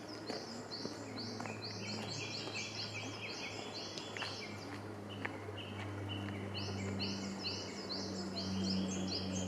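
Small birds chirping in a spring forest: rapid runs of short, high repeated notes that fall off in the middle and start up again about six seconds in, over a faint steady low hum.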